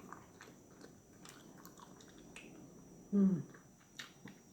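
A person chewing barbecued turkey leg meat close to the microphone, with scattered soft wet mouth clicks and smacks. About three seconds in there is a short, loud voiced sound that falls in pitch.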